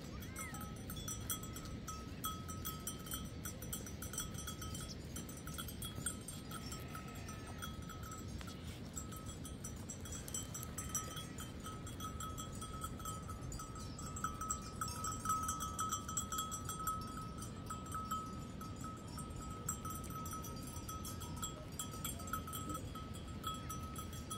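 Livestock bells on a grazing flock, ringing and clinking irregularly with a bright, steady pitch, over a low steady background noise.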